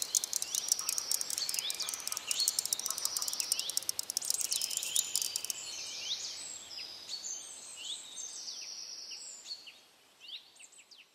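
Many small birds chirping and whistling in short rising and falling calls, with a fast clicking trill over them that stops about halfway; the birdsong then fades out toward the end.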